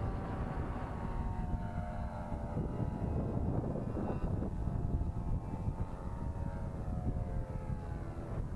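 Nitro glow engine of a radio-controlled model airplane flying past, a steady buzzing whine whose pitch slides down and back up as it passes, over wind rumble on the microphone.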